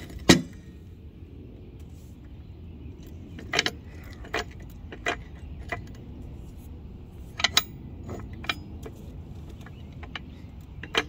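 Sharp metallic clinks and clanks, a handful spaced irregularly a second or so apart, from a floor jack being centred under the car's jack point and raised.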